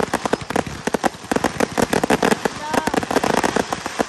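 Fireworks display going off in a dense, rapid run of pops and bangs, many a second, from several shells and crackling effects bursting together.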